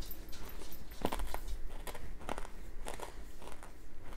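A person chewing a crunchy hard-shelled candy with a peanut powder filling: a handful of irregular crunches as the shell breaks between the teeth.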